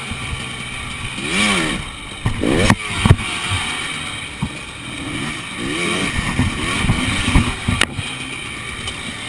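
KTM enduro motorcycle engine revved in short throttle blips, its note rising and falling as the bike is worked over stacked tyres at low speed. Sharp knocks of the bike striking the tyres, the loudest about three seconds in and another near the end.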